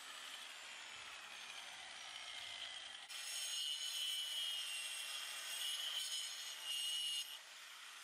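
Angle grinder working a steel edging strip set in concrete. For the first three seconds a fainter whine slides down in pitch. About three seconds in it runs at full speed with a steady high whine for about four seconds, then cuts off.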